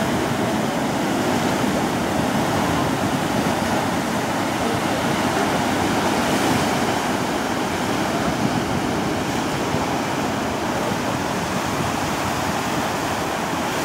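Sea surf breaking and washing over rocks close by: a steady, continuous rush of churning water.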